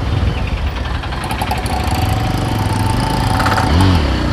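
Yezdi Roadster's single-cylinder engine running under way, with a brief change in revs near the end. It carries a clattering sound that the rider puts down to the clutch not feeling right.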